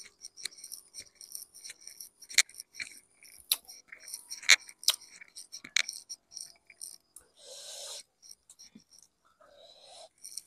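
Fingers mixing and picking up food in a stone cobek, giving a run of small clicks and scrapes against the stone, the sharpest between about two and six seconds in, with a short rustle near the end.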